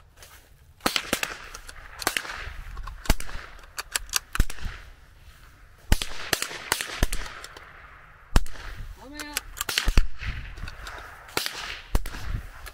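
.22 LR rifle shots from several shooters firing on their own timing: more than a dozen sharp cracks at uneven intervals, some close together.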